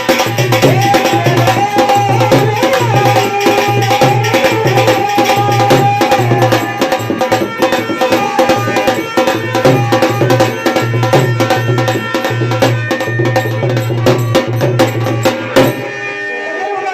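Rajasthani folk bhajan music: fast, even hand-drum and percussion strikes with a pulsing low beat under held melodic tones. The percussion stops suddenly near the end, leaving a held tone.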